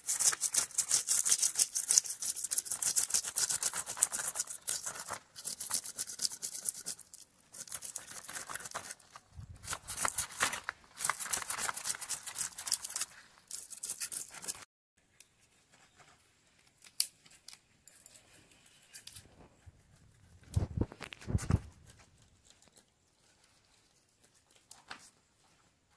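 A knife scraping the scales off a whole carp, fast rasping strokes that go on for about fifteen seconds and then stop abruptly. After that it is much quieter, with a dull low thump about three-quarters of the way through.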